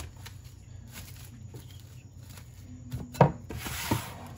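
A cardboard box of plastic food wrap being handled on a kitchen counter: one sharp knock about three seconds in, then a brief rustling scrape. A low steady hum runs underneath.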